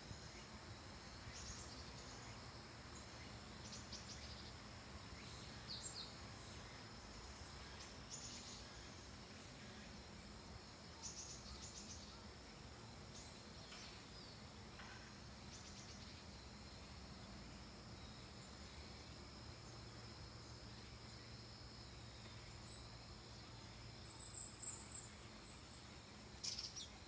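Wild birds in a forest giving short, high chirps every second or two, over a steady high-pitched insect trill. A quick run of louder chirps comes near the end.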